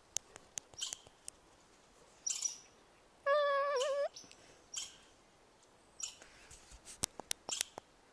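Chipmunk calling: a series of sharp clicks and short high chirps, with one longer wavering call about three seconds in.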